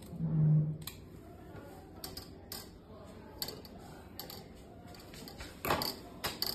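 Sharp snips and clicks of scissors cutting gauze and of handling on a hard bench top, irregular and spaced out, the loudest near the end. A brief low hum sounds about half a second in.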